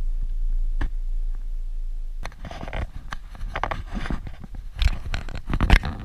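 Suzuki Jimny driving over a rough dirt track, heard from inside the cabin. A low rumble runs for about two seconds and then drops away. After that come irregular clicking and scraping rattles, loudest near the end.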